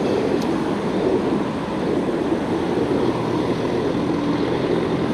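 Steady road traffic noise from cars passing on the road beside the bike lane.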